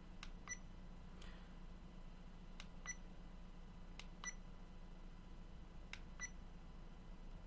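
Buttons on an Aokon action camera pressed four times while its settings menu is stepped through. Each press is a faint click, followed about a quarter-second later by a short, high electronic beep from the camera.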